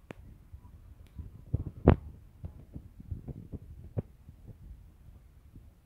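Irregular low thumps and rumble on the phone's microphone, the loudest thump a little before two seconds in.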